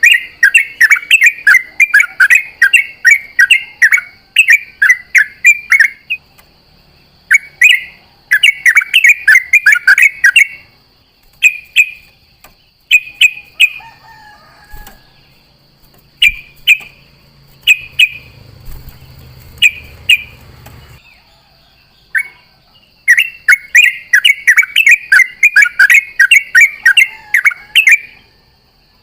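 Yellow-vented bulbul (trucukan) singing loud runs of rapid, bubbly chattering notes. Long bursts come at the start and again near the end, with shorter separate phrases and pauses in between. A faint steady high whine runs underneath.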